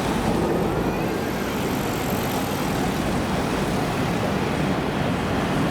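Steady traffic noise on a city street, cars and other vehicles passing in an even wash of sound.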